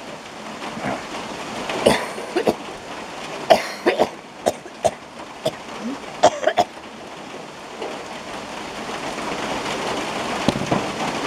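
Rain falling on a tin roof: a steady hiss that gets heavier in the second half. In the first half there is a scattering of sharp taps and knocks from large drops.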